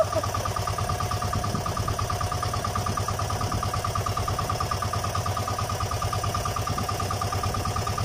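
Small engine of an outrigger fishing boat idling steadily, with a rapid, even beat.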